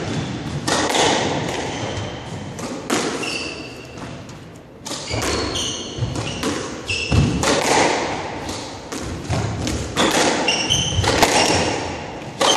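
A squash rally: the ball is struck by racquets and smacks off the walls and glass at an uneven pace, with short high squeaks from court shoes on the hardwood floor between the hits.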